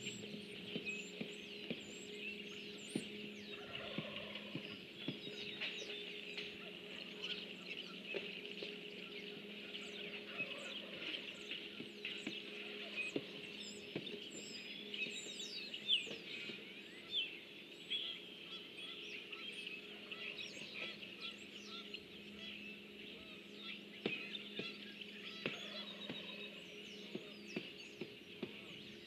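Many birds chirping and calling, a busy outdoor bird chorus of short chirps and trills, over a steady low hum.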